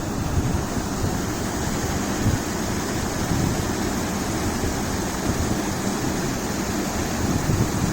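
Steady rushing outdoor noise: wind buffeting the microphone over the sound of flowing river water, with no distinct events.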